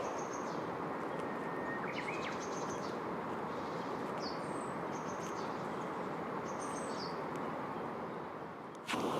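Small birds calling: a few short, high chirps and two quick downslurred notes, over a steady rushing background. A sharp click near the end, followed by louder rushing noise.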